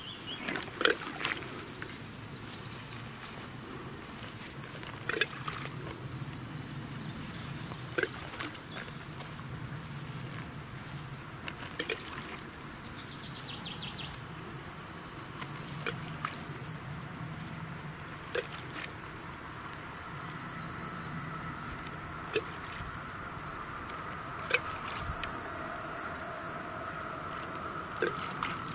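Insects chirping in a steady high-pitched drone, with a few short bird trills and sharp ticks every few seconds.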